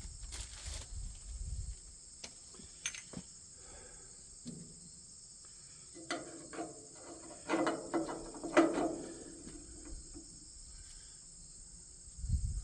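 Metal parts clanking and knocking, with short ringing tones, busiest from about six to nine seconds in, over a steady high chirring of insects.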